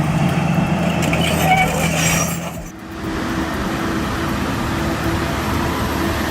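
Heavy truck engine running under load with road and mechanical noise. About three seconds in, it cuts to another steady heavy-vehicle engine drone at a higher pitch.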